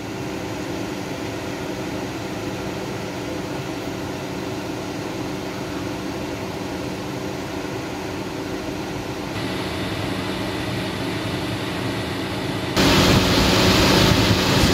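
Chevrolet Orlando's electric radiator cooling fan running steadily, quieter from inside the cabin and then suddenly much louder near the end, up close in the engine bay. The fan runs nonstop as soon as the ignition is on, a fault that began after an engine wash.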